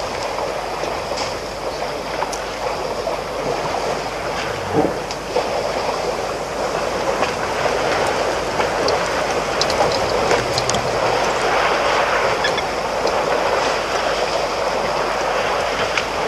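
Steady rushing wind at the waterhole, swelling slightly past the middle, with a few faint ticks.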